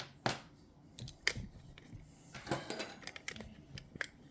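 Small steel lock parts, the levers and key of a disassembled Chubb GPO No.6 lever lock, clicking and clinking as they are handled and laid out. A handful of sharp, irregularly spaced clicks, with a quick cluster about two and a half seconds in.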